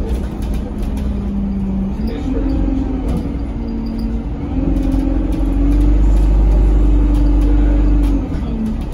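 ADL Enviro200 single-deck bus driving, heard from inside the saloon. The engine and driveline note rises and falls in pitch, and pulls harder with a heavier low rumble for a few seconds past the middle before easing off near the end.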